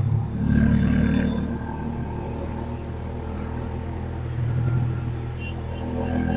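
Honda H'ness CB350's air-cooled single-cylinder engine running steadily under way, louder for about a second near the start.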